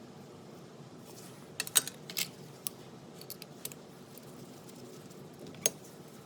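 Small metal parts and hand tools clicking and clinking while the air angle grinder is being taken apart: a quick cluster of clicks about one and a half seconds in, a few lighter ticks after, and one sharp click near the end.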